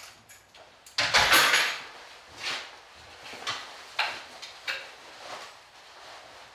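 A door being shut with a brief clatter about a second in, then slow footsteps on a hard floor.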